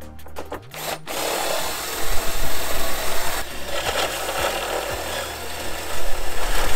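Cordless drill boring a hole up through a car hood, the bit grinding into the panel. It starts about a second in and gets louder about two seconds in.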